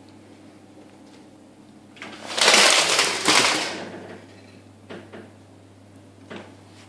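Wooden venetian blind being pulled up, a rattling rush of slats stacking that lasts about two seconds, followed by a few light knocks.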